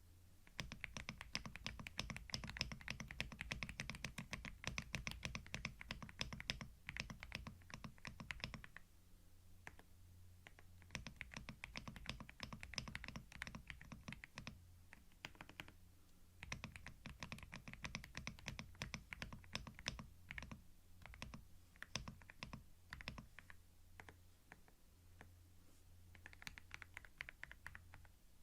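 Typing on a computer keyboard close to a binaural microphone: quick runs of keystroke clicks several seconds long, with short pauses between them and a sparser patch of single keys near the three-quarter mark.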